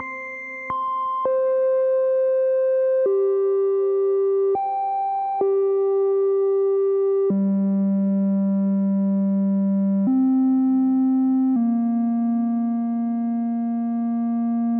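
A single synthesizer voice from a VCV Rack software modular patch holds steady tones that jump to a new note or octave about eight times, every one to three seconds. The notes are being picked from the sequencer's rows with a knob and an octave switch.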